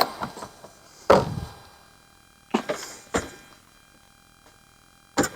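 A handful of separate knocks and clunks, the loudest about a second in, from handling the motorhome's cassette toilet and its outside hatch once the cassette is back in place.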